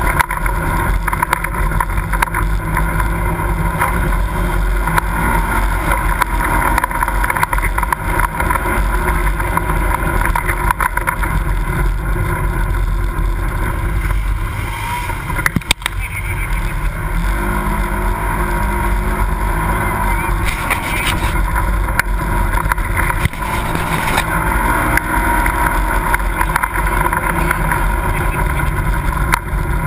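Side-by-side UTV engine running steadily as it drives along a rough dirt trail, with wind buffeting the microphone. The level dips briefly about halfway through.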